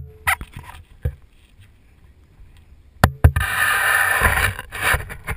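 Sharp knocks from the GoPro housing being handled: one at the start, a couple in the first second and two more about three seconds in. A loud, even rushing noise follows for the last two seconds.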